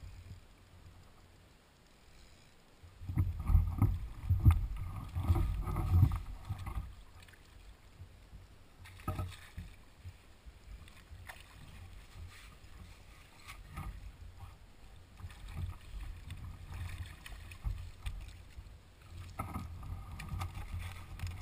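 Water sloshing and splashing around a Hobie kayak, with knocks and rustles of rod and net handling, loudest for a few seconds starting about three seconds in, while a hooked sea bass is played and netted at the boat.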